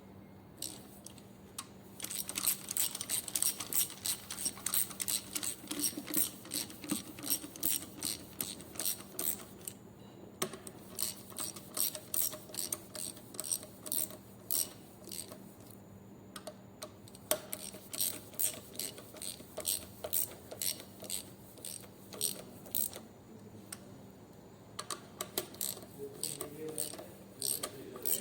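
Ratchet wrench clicking in quick strokes as bolts on the Hino 300 engine are worked during cylinder head installation, in several runs of rapid clicks with short pauses between them.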